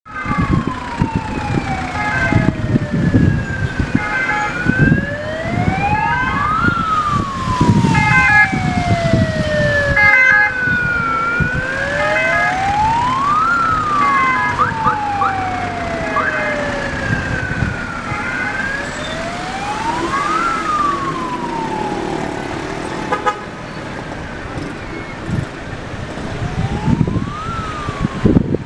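Two wailing emergency-vehicle sirens, out of step with each other, each rising and falling slowly, about once every seven seconds, over the low rumble of city traffic. Short repeated beeps come and go in the first half.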